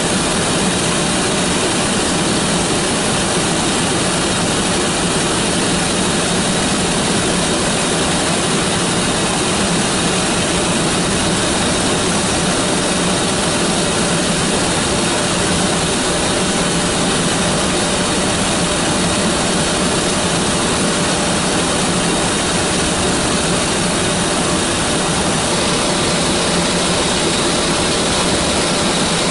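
Cabin noise inside the cockpit of a Hkp 14 (NH90) helicopter in flight. Its twin turboshaft engines, rotor and transmission make a steady, dense rush with faint constant whine tones, unchanging throughout.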